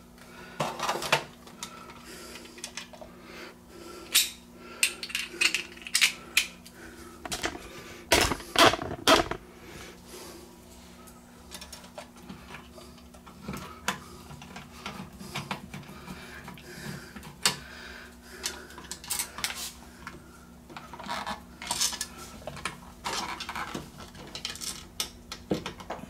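Hand screwdriver turning the mounting screws of a wall dimmer switch into its electrical box: irregular clicks, scrapes and taps of metal on plastic, loudest about eight seconds in.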